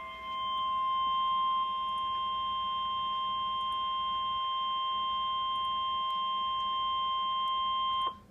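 NOAA Weather Radio 1050 Hz warning alarm tone: a single steady beep held for about eight seconds, then cutting off sharply. It is the signal that sets off tone-alert weather radios ahead of a watch or warning message.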